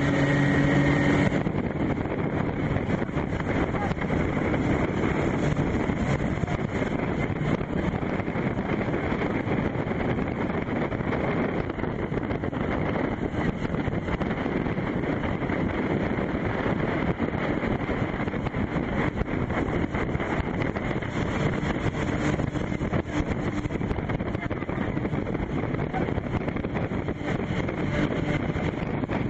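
Speedboat motor running steadily through river rapids, with wind buffeting the microphone. A brief pitched sound stands out in the first second.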